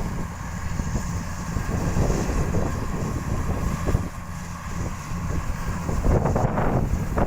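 Kubota rice combine harvester running steadily as it cuts, its engine giving a dense low rumble, with wind buffeting the microphone.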